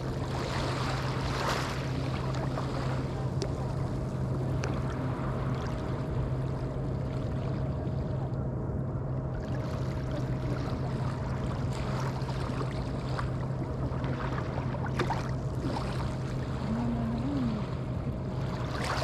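Small Atlantic waves washing onto a sandy beach in soft swells, over a steady low hum. A voice is faintly heard near the end.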